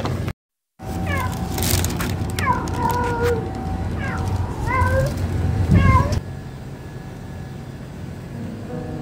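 Cats mewing: after a half-second of silence, a run of seven or eight short, high mews over about five seconds, each sliding down in pitch and then holding briefly, over a low rumble, before they stop.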